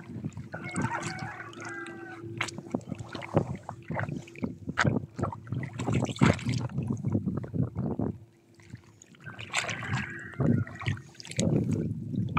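Footsteps wading and splashing through shallow water over coral rock, irregular and uneven, with wind buffeting the microphone and a faint steady hum underneath.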